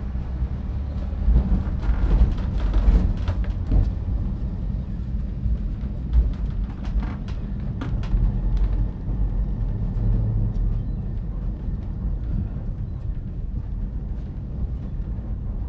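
Great Orme Tramway's cable-hauled tramcar running downhill on its rails: a steady low rumble with scattered clicks and knocks, the knocks thicker in the first half and thinning out later.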